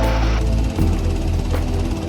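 Background music with a heavy bass and a steady beat; the arrangement changes about half a second in.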